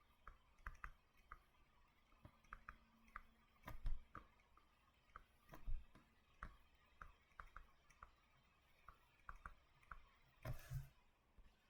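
Faint, irregular clicks and taps of a pen writing, a few strokes a second, with a slightly louder knock or scrape now and then.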